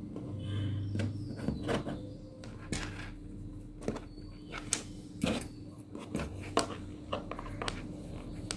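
Hands handling wool yarn and pearl beads on a cloth-covered surface: scattered light taps and rustles at irregular intervals, over a faint steady hum.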